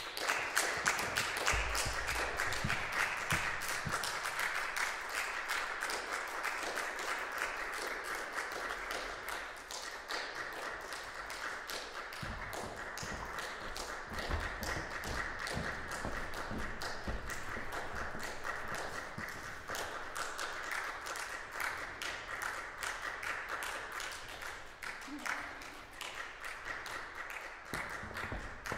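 Audience applauding, loudest in the first few seconds and then steady.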